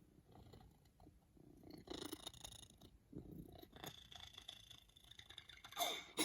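A sleeping pet snoring: a run of soft, rasping breaths, growing louder from about two seconds in, ending with a short falling squeak near the end.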